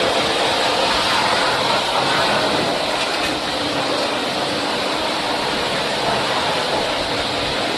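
Steady rushing hiss of a high-pressure water spray washing the disassembled parts of a ceiling cassette air conditioner.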